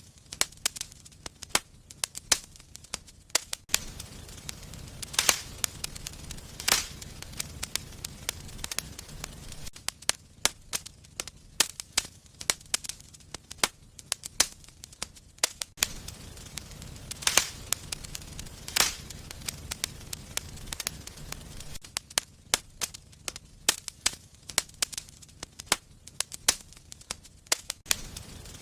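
Wood fire crackling in a fireplace, with frequent sharp snaps and pops and a few louder pops standing out. A low rumble of the flames comes and goes in stretches of several seconds.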